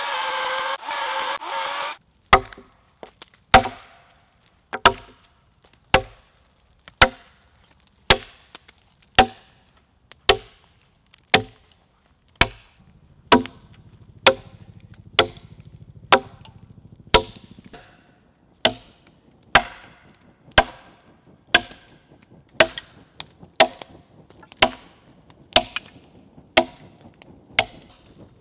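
Oregon electric chainsaw cutting into a log, which cuts off suddenly about two seconds in. It is followed by a steady run of axe strokes chopping a notch into the log, about one a second.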